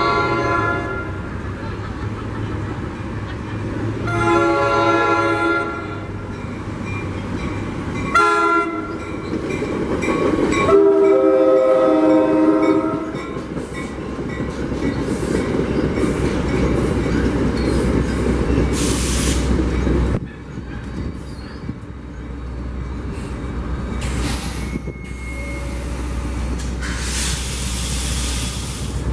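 NJ Transit commuter train sounding its horn in the grade-crossing pattern, long, long, short, long, as it approaches. It then passes over the crossing with a steady rumble and wheel clatter.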